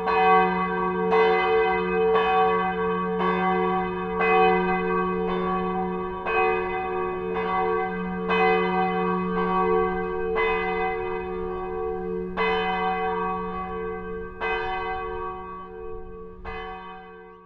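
A large church bell ringing, struck about once a second, each stroke ringing on under the next; the ringing fades near the end.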